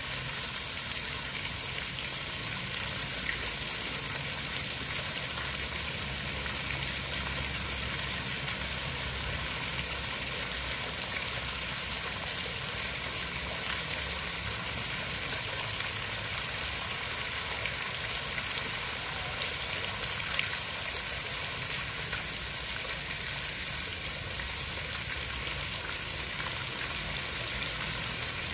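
Water making a steady, even hiss with a low rumble underneath.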